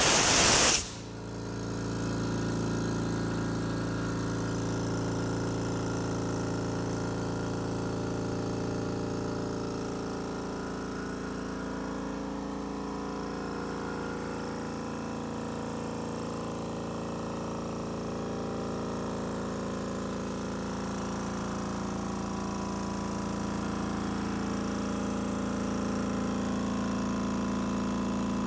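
Stealth 3-gallon, 1 HP oil-free air compressor running steadily as it refills its tank. It starts after a brief hiss of air being let out, which cuts off about a second in. The compressor is not loud at all.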